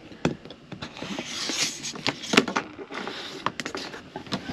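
Handling noise of a plastic trim tool and window trim against a caravan window frame: a string of light clicks and knocks, with a short scraping hiss a little over a second in.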